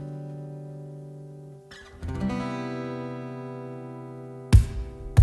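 Acoustic guitar chords strummed and left to ring, a new chord coming in about two seconds in. Near the end a loud cajon hit starts the rhythm.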